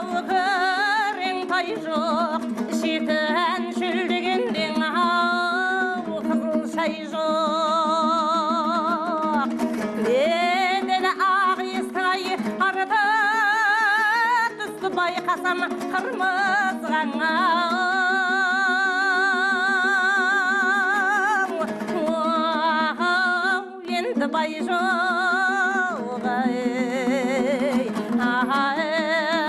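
A Kazakh folk song: a singer with strong vibrato over a plucked dombra accompaniment, the voice holding long wavering notes.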